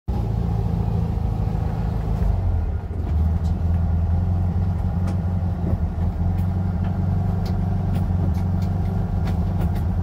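Air-cooled flat-four engine of a 1971 VW Bus running, a steady low rumble heard from inside the cab, with a brief dip about three seconds in and light clicks over it.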